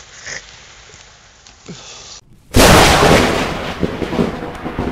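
Rain falling, then about two and a half seconds in a close thunderclap: a sudden loud crack that dies away over a couple of seconds into rolling, rumbling thunder, with rain still falling.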